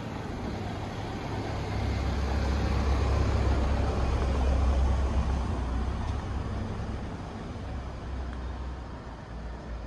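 A road vehicle passing: a low engine rumble that grows louder over a few seconds and then fades, over steady traffic noise.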